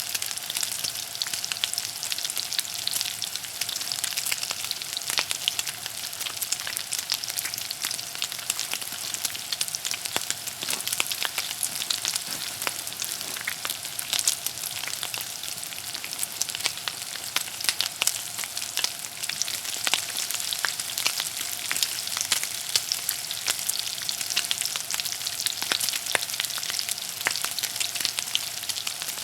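Hot oil sizzling steadily, a dense hiss full of small pops and crackles, with a faint steady hum beneath.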